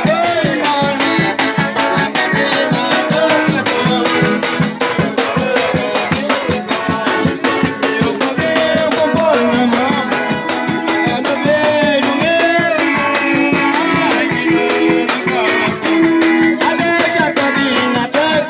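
Music with fast, even shaker-like percussion and melodic lines over it.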